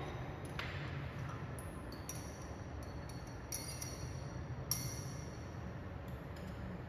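Light clinks of a metal spatula against glass beakers, a few short ringing pings with the loudest a little under five seconds in, over a low steady hum.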